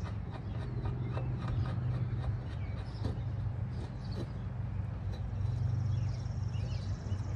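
Scattered light clicks and knocks of handling work over a steady low hum, with a thin high tone joining for the last couple of seconds.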